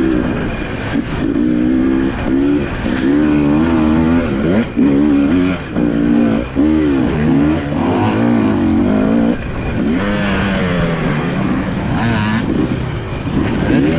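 Off-road dirt bike engines racing, revving up and falling back again and again as the riders work the throttle, with more than one bike heard at once.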